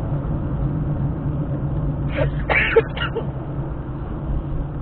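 Steady engine and road hum heard inside a moving car's cabin, with a short vocal sound from someone in the car about two and a half seconds in.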